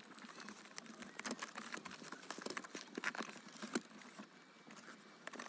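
Plastic packaging of a self-heating hot pot being handled and opened: quiet, irregular crinkles and clicks.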